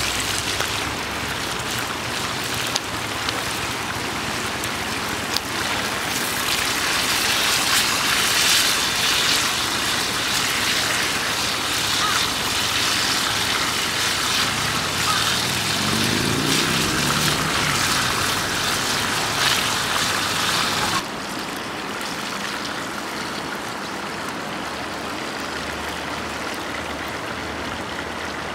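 Beef slices and a bell pepper sizzling and spitting in a frying pan over a wood fire, a steady hiss full of small pops. About 21 seconds in it drops suddenly to a quieter, steadier rush, with a low rising hum heard briefly before that.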